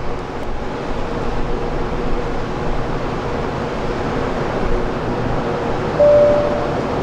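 Jet aircraft engine noise: a steady rumble with a constant hum running through it. A brief, brighter steady tone sounds about six seconds in.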